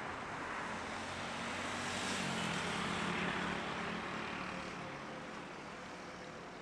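Boeing 737-800's CFM56-7B jet engines at takeoff power during the takeoff roll: a rushing jet noise that grows to its loudest about three seconds in and then fades as the plane moves away, with a low hum dropping slightly in pitch as it passes.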